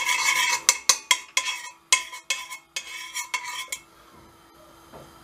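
Metal spoon clinking and scraping against the bottom and sides of a stainless steel pot as butter is stirred in a little water to melt it. The clinks come thick and fast, then thin out about four seconds in.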